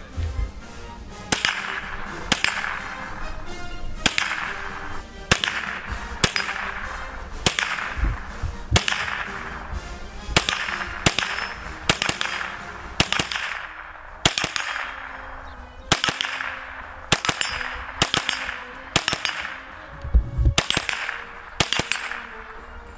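Scoped rifle fired in a long string of about two dozen shots, roughly one to two a second, each sharp crack trailing off in an echo.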